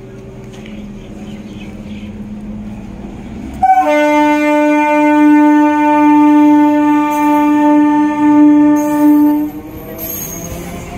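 Electric multiple unit local train running, then one long, loud blast of its air horn starting about four seconds in, held for about six seconds with a short dip near the end, as a warning at a level crossing. The wheel and running noise carries on after it, with faint high wheel squeal.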